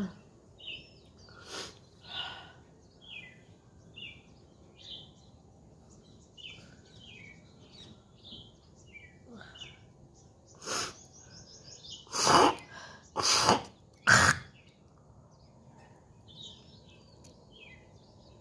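A woman hawking and clearing phlegm from her throat and nose: a couple of short harsh hacks near the start, one more at about 11 seconds, then three loud harsh hawks in quick succession about two-thirds of the way through. It is thick morning phlegm from a cold. Birds chirp in the background throughout.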